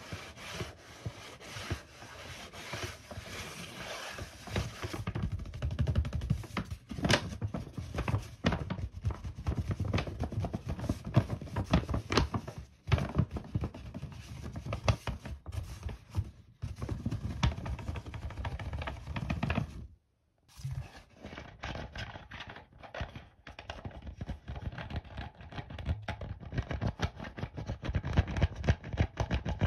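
A dark blue shopping bag handled close to the microphone: crinkling, scratching and rubbing with frequent sharp taps. After a brief cut to silence about two-thirds of the way through, a plastic cola bottle is handled, giving more crinkling and tapping.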